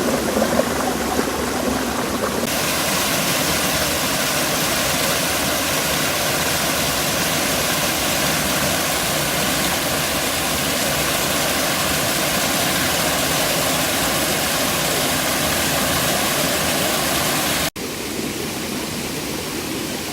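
Rushing water of a forest river and waterfall, a steady even wash of noise. It changes abruptly and grows brighter about two seconds in, and cuts out for an instant near the end before going on.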